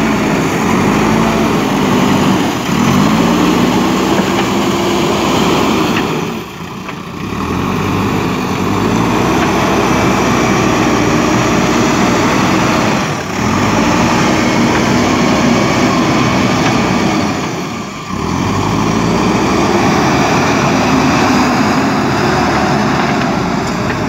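JCB 3DX Super backhoe loader's diesel engine working under load as the front bucket pushes soil, its note climbing and easing off in repeated surges, with three brief dips.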